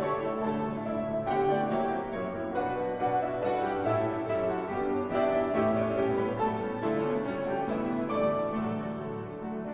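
Several grand pianos playing together in a classical ensemble piece, many struck notes ringing and overlapping, growing slightly quieter near the end.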